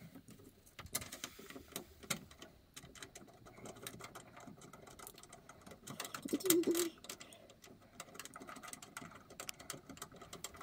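Faint, irregular clicks and light scraping of a long zinc-plated machine screw being turned by hand into a porcelain lamp holder's mounting hole. A short louder hum comes about six and a half seconds in.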